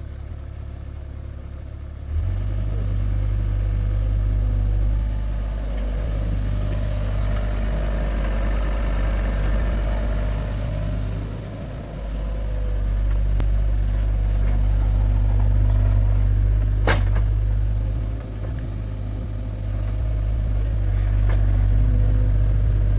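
Excavator's diesel engine running with a steady low rumble, growing abruptly louder about two seconds in. There is a single sharp click about three-quarters of the way through.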